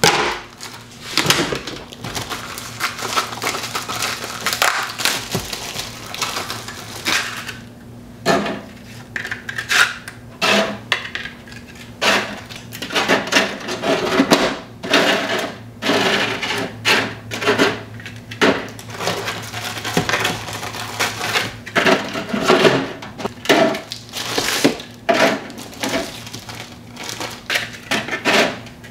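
Plastic wrapper crinkling and light irregular clicks and clatters of crisp taco shells being handled and set one by one onto an air fryer oven's rack.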